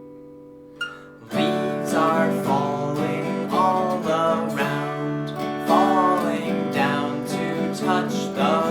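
Acoustic guitar: a held chord fading out, then strummed chords starting up again about a second and a half in and going on in a steady rhythm.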